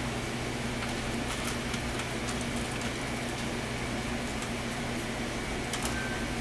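A steady low electrical or mechanical hum, with faint light clicks scattered through it.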